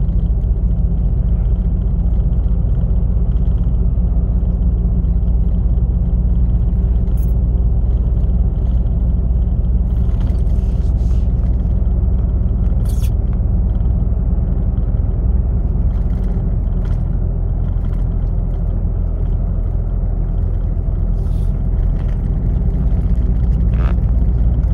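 Steady low rumble of a lorry driving on an open road, engine and tyre noise heard from inside the cab, with a few brief clicks and rattles.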